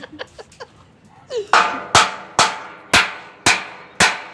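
A hammer striking steel in a steady rhythm of about two blows a second, six in all, starting about a second and a half in. Each blow rings briefly.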